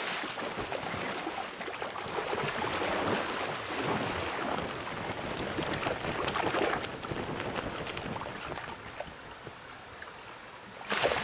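Water splashing and churning as two Nile crocodile bulls fight in a river, with a steady rush of water that turns quieter and calmer in the last couple of seconds.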